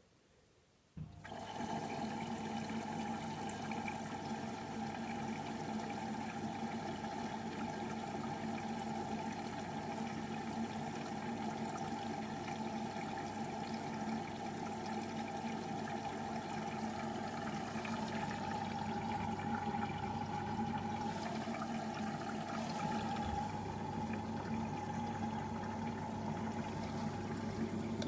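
Beko washing machine filling with water: about a second in, the inlet valve opens and water starts rushing steadily into the machine, with a low hum underneath.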